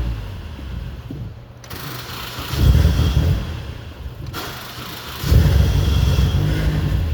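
1994 Saturn SL2's 1.9-litre twin-cam four-cylinder engine starting, catching for a second or two and then dying, twice: it starts briefly and immediately stalls.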